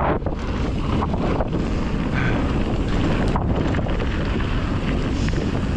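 Wind buffeting the microphone at speed on a mountain-bike descent, over a steady low rumble of tyres on dirt trail, with a few sharp rattles from the bike.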